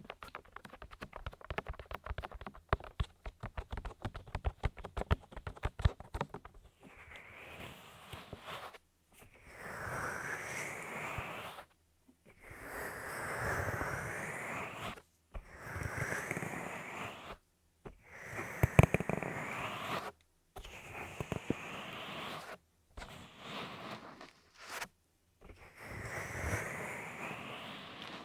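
Close-up ASMR sounds at the ear of a binaural dummy-head microphone: about six seconds of rapid crackling clicks, then about eight long rushing strokes of two to three seconds each with short pauses between them.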